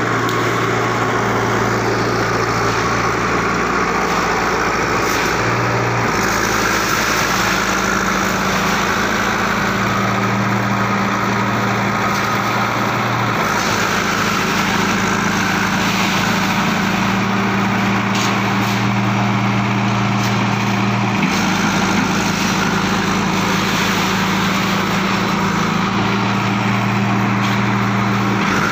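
Steady industrial drone of steel plant machinery running: a constant noisy din with a low hum whose pitch steps between two levels every few seconds.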